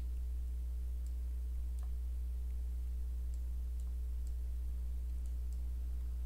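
Steady low electrical hum from the recording setup, with a handful of faint, scattered mouse clicks as a colour-ramp slider is dragged.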